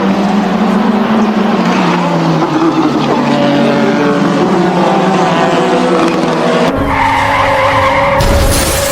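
Formula One car engines at racing speed. A high engine note glides slowly down in pitch, then about two-thirds of the way through gives way abruptly to a steadier note with more rumble and rushing noise.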